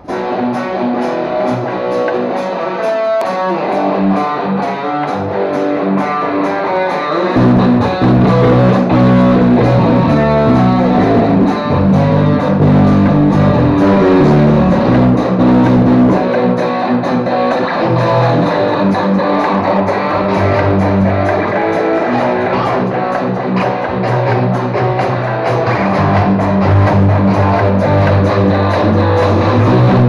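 Cort M200 electric guitar played through an amp over a rock backing track, with steady high drum ticks about two to three a second; a deep bass line comes in about seven seconds in.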